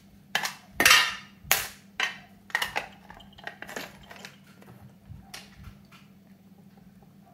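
A series of sharp clicks, taps and clinks of small hard parts being handled on a tabletop, close together in the first few seconds and then sparser, over a faint steady low hum.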